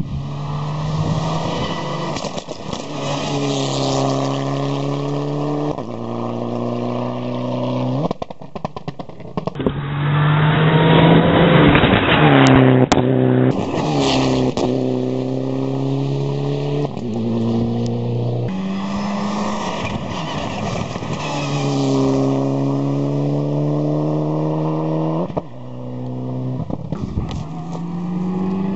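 Hillclimb race cars at full throttle, accelerating uphill through the gears: the engine note climbs and drops back at each upshift, over and over. The loudest moment is a car passing close at about the middle.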